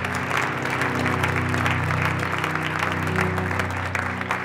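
Audience applauding steadily, with music playing underneath.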